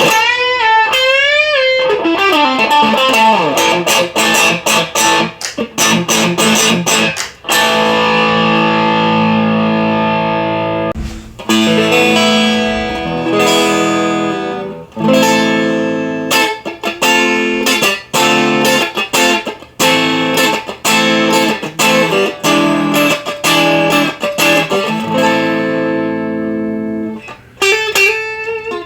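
Electric guitar played through a Marshall DSL1 amp. Wavering vibrato bends near the start and a slide down in pitch are followed by ringing chords, and then a steady run of strummed chords and picked notes.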